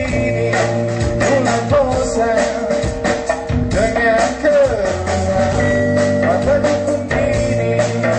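Live band music: a singer with drums and percussion beating steadily under the melody.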